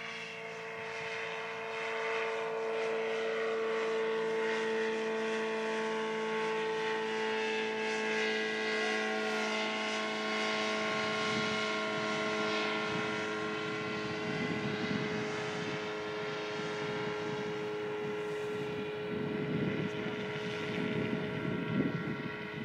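Small propeller engine of an ultralight tug aircraft droning at a steady pitch as it climbs out towing a hang glider. The drone fades a little in the second half, when gusts of wind hit the microphone.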